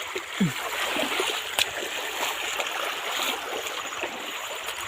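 Clear, shallow river running over stones in a steady babble, with a few small splashes and a sharp knock about one and a half seconds in.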